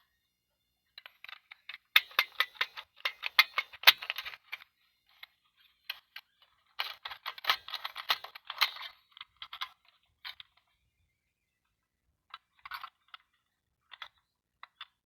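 Small hard plastic pieces of a toy doctor playset rattling and clicking against each other as they are handled: two spells of rapid clicking, then a few scattered clicks.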